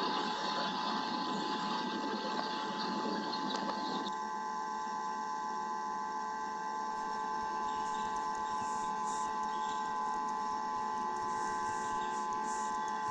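Nest-camera audio: a steady electronic whine of several fixed high tones over a rough hiss that eases about four seconds in.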